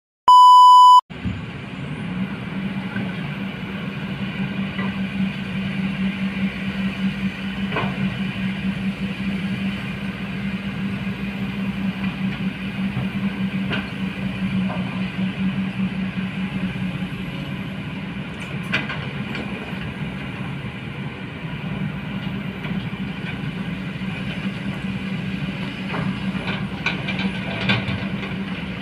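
A short, loud, pure beep right at the start, then the diesel engines of Kobelco hydraulic excavators running steadily as they dig, with a few brief knocks now and then.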